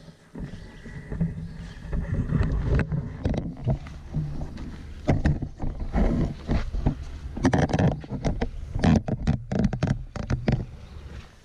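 Nylon tent fabric rustling, crumpling and bumping irregularly as a collapsed pop-up hub tent is folded and handled for packing. It is busiest near the end, then dies away.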